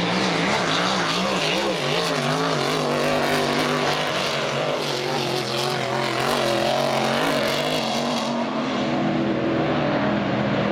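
Engines of Annihilator-class race hydroplanes running flat out as they race past, a loud steady drone whose pitch wavers up and down in the first few seconds.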